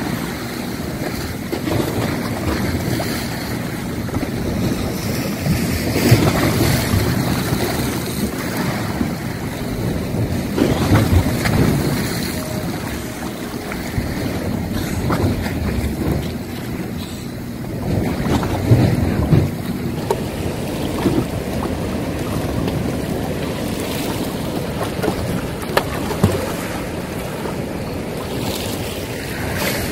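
Wind buffeting the microphone over choppy sea water, with waves splashing and lapping; a rough rumble that swells and eases irregularly.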